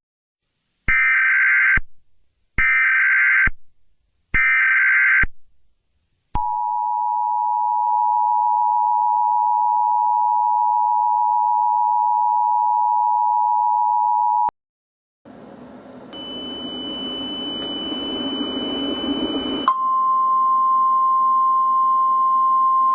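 Emergency Alert System alert: three short screeching bursts of SAME header data, then the two-tone attention signal held for about eight seconds. After a short gap comes a swelling hiss with high steady whistles over it, and then a single steady alert tone takes over near the end.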